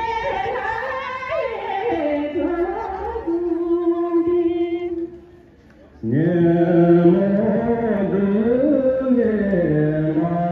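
Traditional Tibetan folk singing with long, drawn-out melodic phrases, sung for a slow group dance. The singing dips briefly about five seconds in, then a new, lower-pitched phrase begins.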